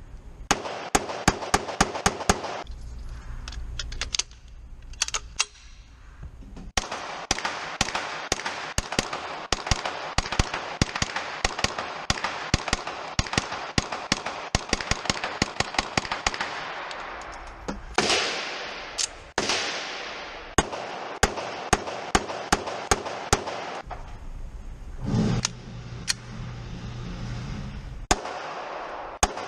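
Rapid gunfire: strings of quick, sharp shots in bursts of several a second, with short pauses between strings and two longer, fading blasts around eighteen seconds in.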